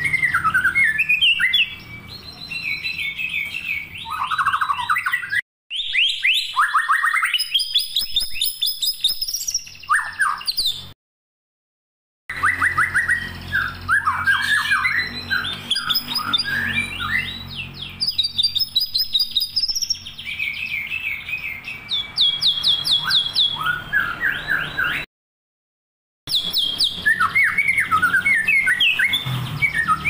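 A caged songbird singing a fast, varied song of whistles, trills and chirps in quick phrases. The song breaks off into dead silence three times: briefly about 5 seconds in, then for about a second near 11 and near 25 seconds.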